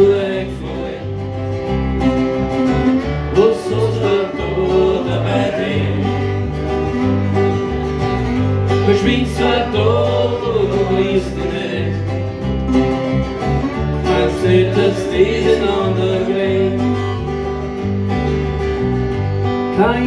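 Live acoustic band with resonator guitar, acoustic guitar and electric guitar playing an instrumental break of a country-folk song, over a steady stepping bass line with bending guitar lead lines.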